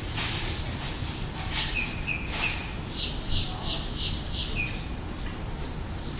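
A bird chirping: a few short calls, then a quick run of about six higher notes, about three a second, then one more call. A steady low rumble runs underneath.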